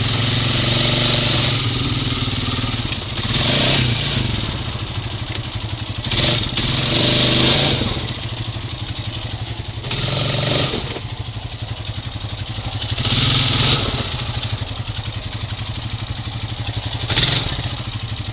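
Honda Rancher 420 ATV's single-cylinder engine running at low speed on rough trail ground, a steady drone that surges louder about five times in short bursts.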